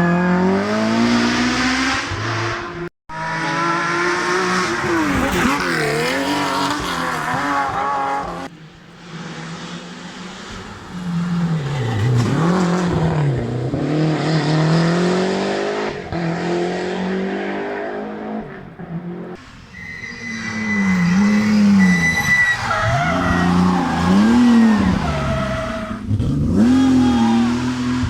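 Historic rally cars at speed on a stage, several separate passes cut one after another: engines revving hard and dropping back through gear changes and lifts, with tyre squeal in places.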